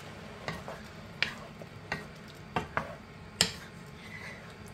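Wooden spatula stirring potatoes and onions in a nonstick frying pan, knocking and scraping against the pan about six times, the loudest knock about three and a half seconds in. A steady sizzle of the soy and oyster sauce with its added water runs underneath.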